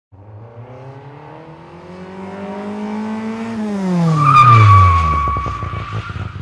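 Car engine revving up steadily, then dropping sharply in pitch as a high tyre squeal sets in about four seconds in. It ends in low, chugging engine pulses, like a car accelerating and then skidding to a stop.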